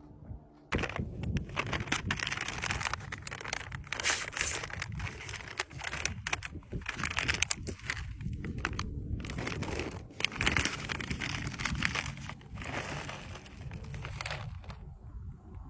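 Crinkling of a foil-lined MRE food pouch being handled and opened: a dense run of crackles and rustles that starts about a second in, with a few brief pauses.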